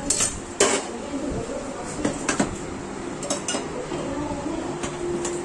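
Metal utensils clinking against a steel plate as a kulcha is handled: a series of irregular, sharp clinks.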